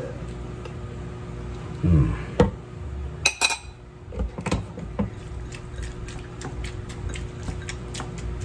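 Kitchen clatter of a spoon, bottle and ceramic bowl and plate being handled while seasoning is poured and mixed. A bright cluster of clinks comes a little after three seconds in, followed by a run of light ticks.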